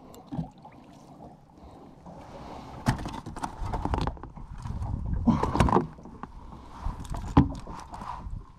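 Knocks and clatter in a small fishing boat as a freshly caught fish is handled, over a low rumble. The sharp knocks come in clusters from about three seconds in, the loudest near the end.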